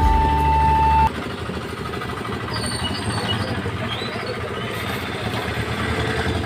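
Flute-led background music cuts off suddenly about a second in, leaving a steady rumbling background noise with a few faint high chirps.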